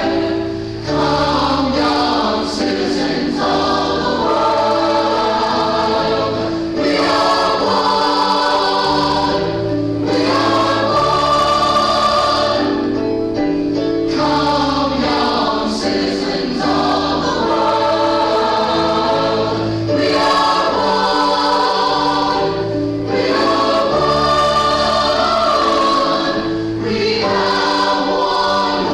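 A choir singing a gospel hymn over held low accompaniment notes, in phrases of a few seconds each.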